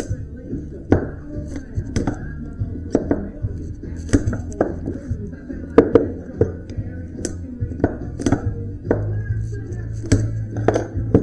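About fifteen sharp, irregular metal knocks and clinks from copper windings being stripped out of cut electric-motor stators, over steady background music.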